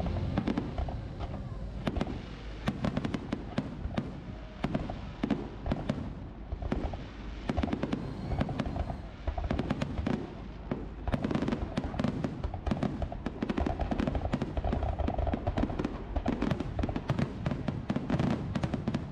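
Fireworks going off, a dense run of sharp cracks and bangs over a low rumble.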